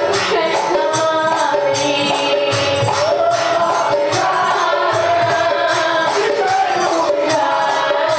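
Live kirtan music: dholak drums and jingling hand percussion keep a steady beat under a sustained melody.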